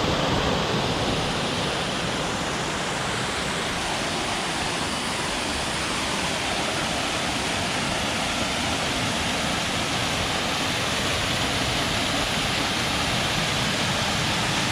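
A waterfall rushing: a steady, even noise of falling water that holds level throughout.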